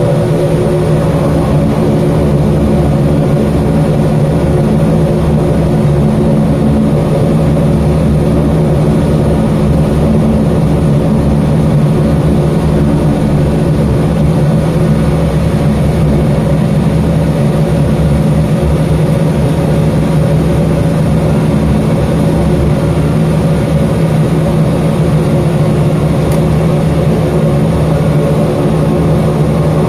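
Turboprop airliner's engines and propellers running at a steady, even pitch, heard from inside the cabin during the rollout and taxi after landing.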